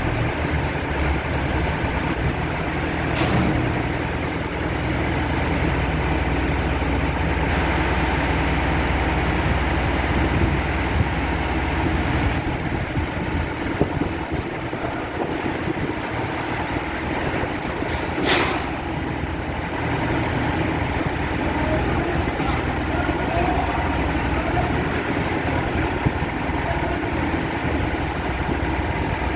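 Heavy diesel machinery, such as a crane, running steadily under load. There is a low engine hum, a short sharp hiss about 18 seconds in, and a fainter one about 3 seconds in.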